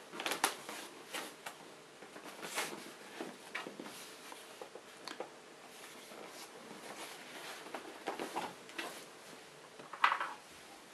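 Cardboard netbook box being handled and turned in the hands: scattered scuffs and rubs of skin on cardboard with small knocks, and a sharper knock near the end as the box is put down.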